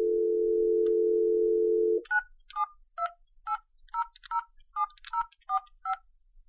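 Telephone dial tone held steady for about two seconds, then cut off as about a dozen touch-tone (DTMF) keys are pressed in quick succession, each a short two-tone beep: a phone number being dialed.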